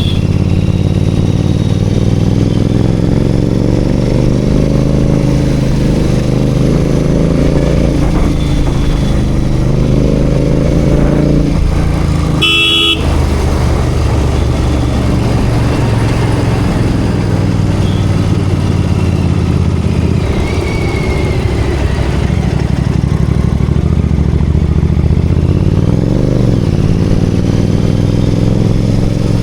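Royal Enfield Continental GT 650's parallel-twin engine running steadily while riding in city traffic, with a short vehicle horn honk about halfway through and the engine pitch dipping and rising again near the end.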